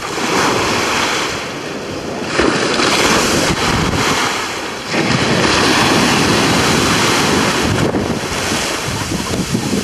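Heavy ocean surf breaking and washing over a rocky shore, a continuous rushing roar that swells louder about two and a half and five seconds in, with wind buffeting the microphone.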